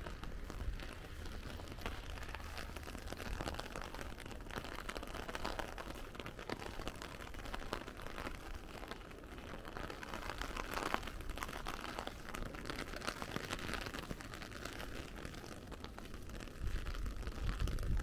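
Steady rain falling, heard as a dense haze of fine drop ticks. A low rumble of wind on the microphone grows louder near the end.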